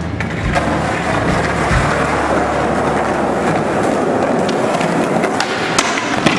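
Skateboard wheels rolling on concrete, with a few sharp clacks of the board near the end.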